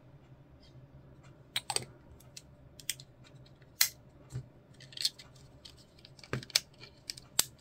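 Irregular sharp clicks and light taps of small plastic model-kit parts being handled and pressed into place, with the loudest clicks a little under four seconds in and near the end.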